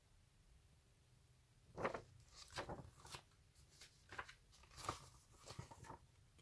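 Magazine pages being turned by hand: a string of short paper crinkles and rustles starting about two seconds in.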